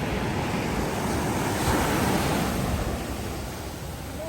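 Sea surf washing onto the beach, swelling to a peak in the middle and then easing off, with wind rumbling on the microphone.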